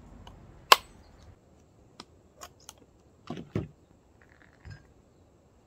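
A knife striking a husked coconut's shell once, a sharp crack, as the top is cracked open around its circumference. It is followed by a few lighter clicks and knocks.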